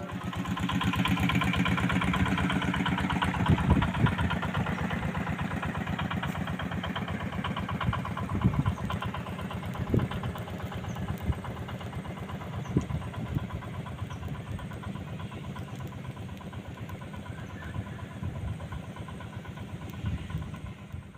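A small engine running with a rapid, even putter, slowly fading away; a few knocks stand out over it.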